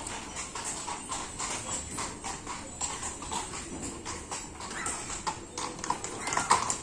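Horse's hooves clip-clopping on a cobblestone street as a horse-drawn carriage passes: a steady run of sharp hoof strikes, several a second, growing loudest near the end.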